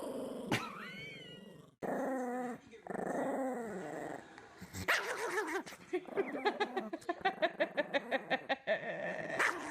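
Chihuahua growling and snarling in several short, abruptly cut segments, with a rapid run of short sharp yaps in the second half.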